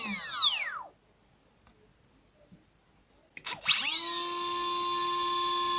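Emax PM1806 2300Kv brushless outrunner motor, spinning with no propeller, whines down in pitch to a stop within the first second. After about two and a half seconds of quiet it spins up again with a rising whine and settles at a steady high-pitched whine.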